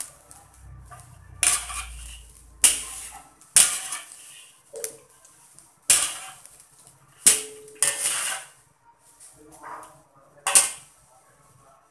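Wire spider strainer clanking and scraping against a metal wok while stirring chicken pieces being parboiled in water. About seven sharp metallic knocks come at uneven intervals, each ringing briefly.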